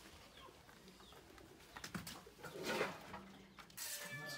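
Faint bird calls over a quiet background, with one brief louder sound about two-thirds of the way through.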